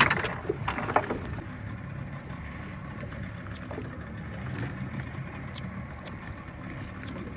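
Small fishing boat at sea: a steady low rumble, with two sharp knocks, one at the start and one about a second later.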